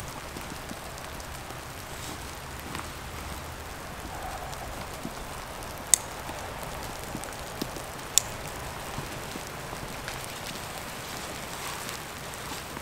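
Steady rain-like hiss of outdoor ambience, with two sharp clicks about six and eight seconds in.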